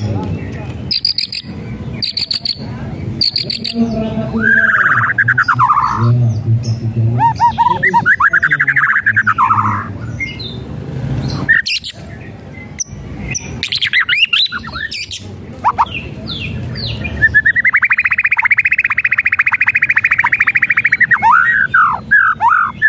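White-rumped shama singing: a few clusters of sharp clicks, then rattling trilled "kretekan" calls, a long buzzing trill, and quick whistled sweeps near the end.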